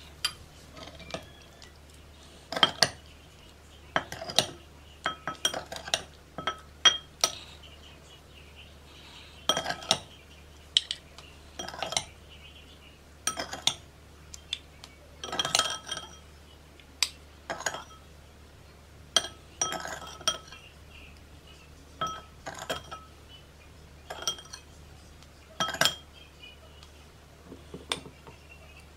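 A metal spoon repeatedly clinking against a white ceramic bowl and the rim of a small glass jar as diced kiwi is scooped into the jar: irregular sharp clinks with a brief ring, a few every couple of seconds.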